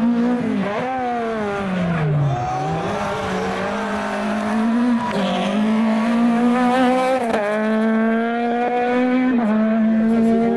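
Peugeot 205 rally car's four-cylinder engine running at high revs on a stage. The engine note falls about two seconds in as the car lifts off, then climbs again, and it dips briefly twice more.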